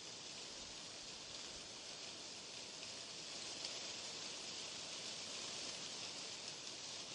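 Steady hiss of white noise, even and unbroken, brightest in the high range.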